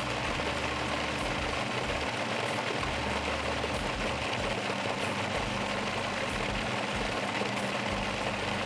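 Food processor motor running steadily, blending cooked chicken livers and their pan juices into a smooth pâté.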